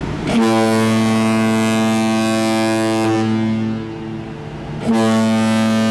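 Deep ship's horn sounding two long blasts: the first holds for about three seconds and fades, and the second starts about five seconds in and is still sounding at the end.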